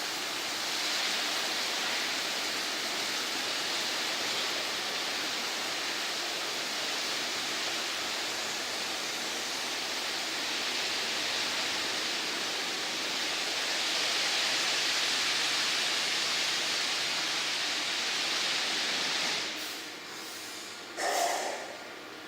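Automatic rollover car wash machine running, a steady rush of spraying water that drops away about three-quarters of the way through, followed by a brief louder noise near the end.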